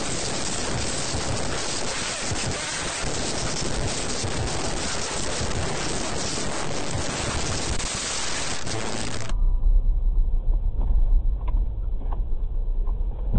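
Dashcam recording of a car on the move: a steady rush of road and wind noise for about nine seconds, then, after a cut, a duller, deeper rumble of another car's engine and tyres.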